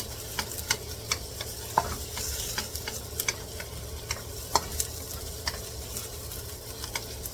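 Garlic and onion sizzling in a frying pan while a utensil stirs them, with irregular sharp clicks and scrapes against the pan about twice a second over a steady hiss.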